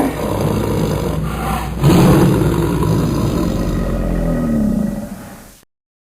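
Dragon roar sound effect made by layering recordings of real animals such as big cats, bear and alligator. A growling roar swells into a second, louder roar about two seconds in, then fades and cuts off abruptly near the end.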